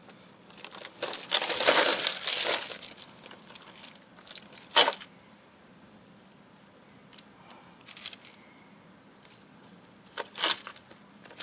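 Ice cubes clattering and crunching as a hand digs through a cooler packed with ice and fish: a run of noisy bursts over the first three seconds, one sharp clatter near five seconds, then another short burst near the end.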